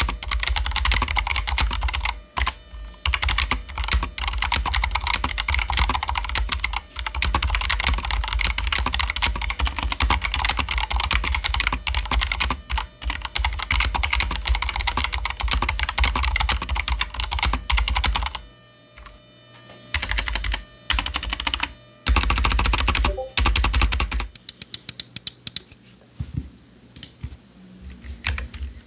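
Fast, continuous typing on a Razer BlackWidow V3 Mini Hyperspeed mechanical keyboard with stock Razer Yellow linear switches and ABS keycaps. The typing stops briefly about two-thirds of the way through, resumes, and then gives way to a few soft, sparse key clicks near the end.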